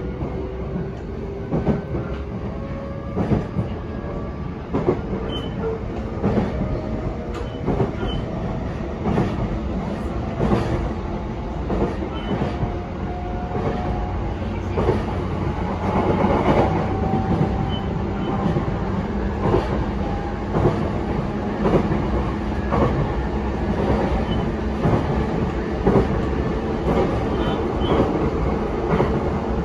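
JR East E233-7000 series electric multiple unit running, heard from inside the car: its motor whine rises slowly in pitch as the train gathers speed. The wheels click at regular intervals over the rail joints.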